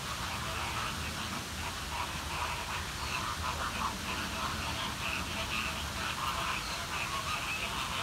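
A flock of flamingos honking and chattering in many overlapping short goose-like calls, over the steady rush of a waterfall.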